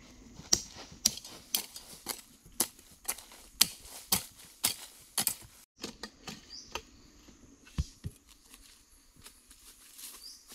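Hoe blade chopping into dry earth, about two sharp strikes a second, each with a short scrape of soil. The strokes thin out to a few scattered hits after about six seconds.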